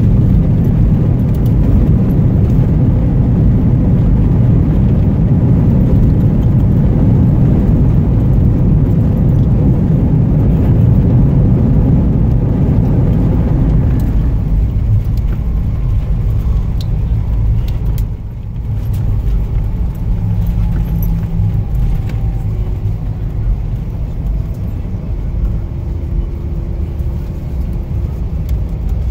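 Jet airliner's cabin noise during the landing rollout, with the spoilers deployed: a loud low roar that drops off about halfway through as the plane slows. It is followed by a quieter rumble and a faint engine hum.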